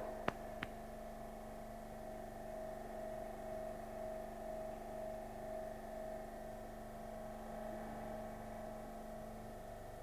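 Electro-hydraulic concrete compression testing machine running with a steady hum while it loads a 150 mm concrete cube toward its failure load. A few small clicks in the first second.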